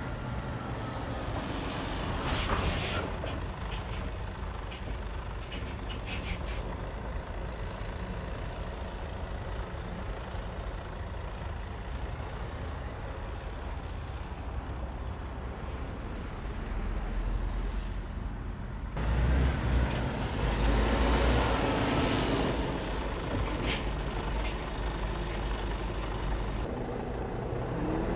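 Mercedes-Benz heavy truck with a semi-trailer driving slowly by, its diesel engine running with a low rumble and tyre noise. There are a couple of short air-brake hisses. The sound gets louder and deeper about two-thirds of the way in.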